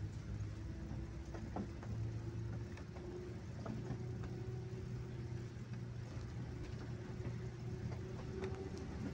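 Passenger bus engine running with a steady hum while the bus drives along, heard from the driver's seat. The pitch lifts slightly a few seconds in and again near the end, and there are a few light clicks.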